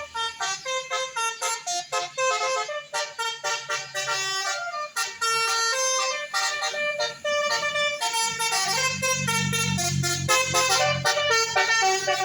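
Bus 'telolet' horn, a multi-trumpet air horn, playing a quick melody of short stepped notes. A low engine rumble comes up from about eight seconds in.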